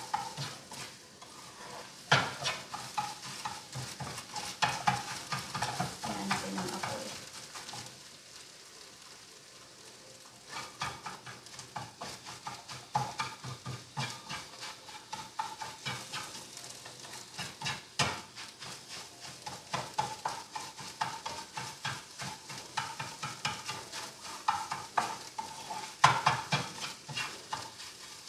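Spatula scraping and tapping against a frying pan as scrambled egg is chopped and broken into small pieces, over a light frying sizzle. The strokes come in quick irregular runs, with a quieter lull about eight to ten seconds in.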